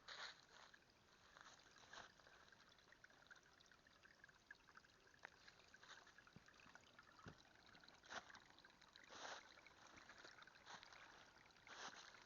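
Small brook trickling and splashing faintly, a steady rush of water broken by irregular brighter splashes.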